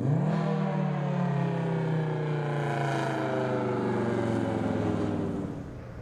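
Model 5 electromechanical outdoor warning siren sounding its low-tone growl, its pitch sliding slowly downward as the rotor winds down. It drops away sharply about five and a half seconds in, leaving a fainter low hum.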